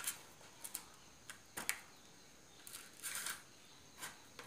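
Kitchen knife cutting into a whole breadfruit on a plastic cutting board: scattered light clicks and a few short scraping strokes, the longest about three seconds in.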